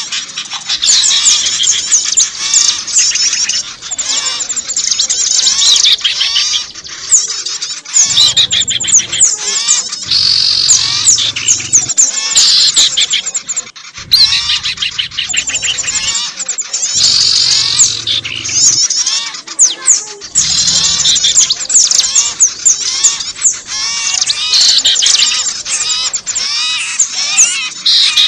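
Bird-lure recording of many small songbirds calling at once: a dense, unbroken chatter of rapid high chirps and twitters overlapping one another. A low hum comes and goes underneath in a few patches.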